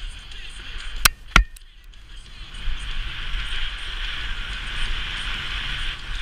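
Snowboard sliding through powder snow, a steady hiss over low wind rumble on the camera microphone, with two sharp knocks about a second in.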